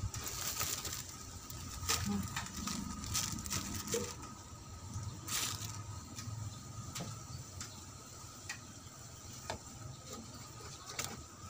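A small wood fire just catching, with irregular crackles and clicks from the burning kindling, and brief rustling of the plastic bags used to feed it.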